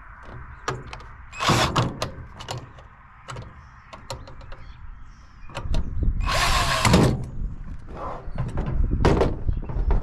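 Power drill run in two short bursts, backing out stubborn screws from a microwave's sheet-metal casing; the second burst winds down in pitch at its end. Scattered clicks and knocks of metal parts come between the bursts.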